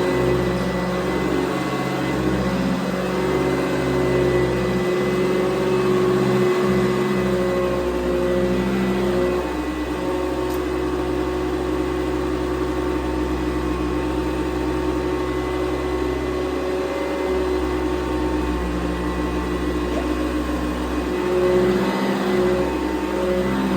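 1992 Eureka ESP upright vacuum cleaner running steadily while vacuuming, a motor whir with a steady hum. Its pitch drops slightly about nine seconds in.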